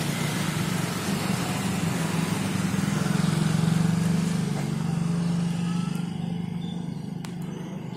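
A motor vehicle passing on the road: a low engine hum that grows over the first four seconds and fades away by about seven seconds, with a light click near the end.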